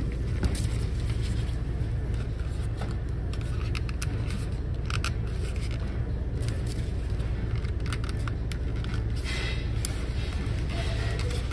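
Steady low background hum with scattered light clicks and scrapes of foam soda cups being handled and set down on a stainless steel counter.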